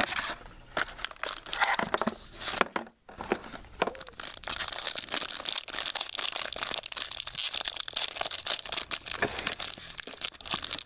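Trading-card packaging being torn open and handled: scattered crackles and a short tear at first, then about four seconds in a steady, dense crinkling of plastic wrapper.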